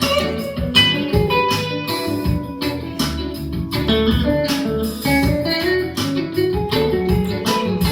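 Electric guitar, a 2021 Classic Vibe, playing a bluesy single-note lead with notes stepping up and down in pitch over a steady low bed.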